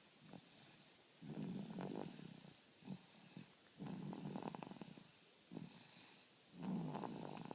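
Snoring: three long, rough snores about two and a half seconds apart, with a few short, faint breaths between them.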